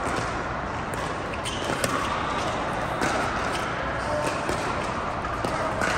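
Pickleball paddles striking a hard plastic ball in a rally: a few sharp pops at irregular intervals of about a second. Behind them is the steady din of a large indoor hall.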